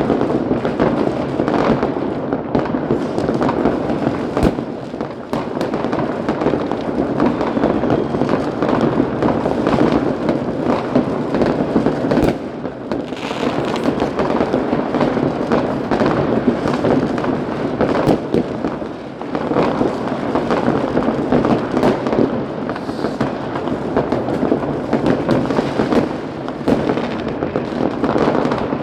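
Many fireworks and firecrackers going off at once in a dense, continuous crackle with frequent sharp bangs, easing slightly for a moment a few times.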